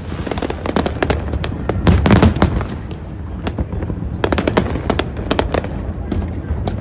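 Aerial fireworks display: a rapid, irregular string of bangs and crackles over a continuous low rumble, thickest about two seconds in and again from about four to five and a half seconds.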